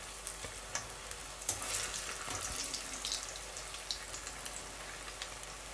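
Battered onion rings (ring onion bajji) deep-frying in hot oil: a steady sizzle with many small crackles. A slotted metal skimmer is moving through the oil, turning the rings over.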